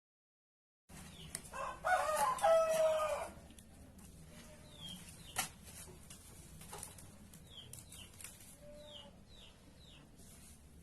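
A rooster crows once, about two seconds in, ending on a held note. Small birds give short, high chirps now and then afterwards, and there is a single sharp click about halfway through.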